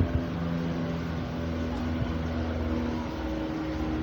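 Steady low mechanical drone of a cruise ship underway, with several held low tones over an even rushing noise.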